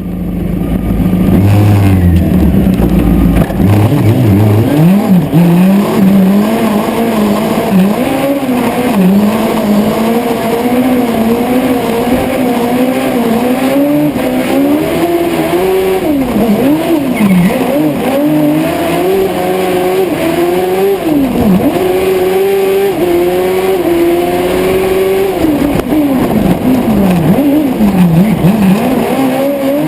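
Honda Hornet 600 inline-four engine in a Piaggio Ape Proto racing three-wheeler, heard on board under hard driving. It runs low for the first few seconds, then revs up hard again and again, with the pitch dropping sharply each time it lifts off or changes down.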